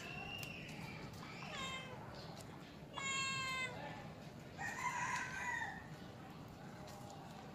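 Cats meowing about four times, with calls from about half a second to over a second long; the two loudest come about halfway through.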